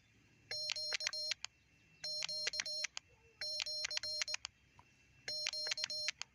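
Morse code sidetone from a small QRP transceiver's tinny built-in speaker, keyed with iambic paddles: a buzzy beep switching on and off in dits and dahs, four short groups of characters with pauses between them.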